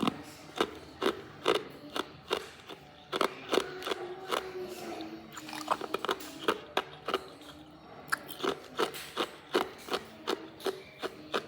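Hard ice being bitten and crunched between the teeth: a string of sharp cracks, about two a second.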